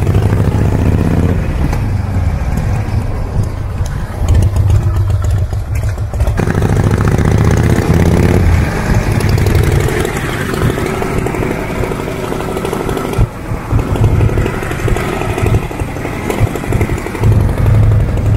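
1952 Harley-Davidson Panhead V-twin chopper running as it is ridden, the engine note rising and falling with the throttle and changing abruptly a few times between passages.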